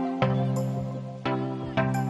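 Background music: a gentle melody of struck notes, each starting sharply and fading, a new one coming every half second to a second.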